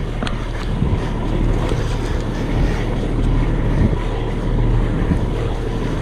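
Steady low rumble of an idling heavy diesel truck engine, with wind blowing on the body-worn microphone.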